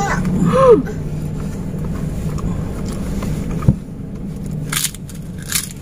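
Steady low hum of a car idling, heard inside the cabin. A short vocal sound comes about half a second in, and near the end a crisp cracker is crunched twice while being chewed.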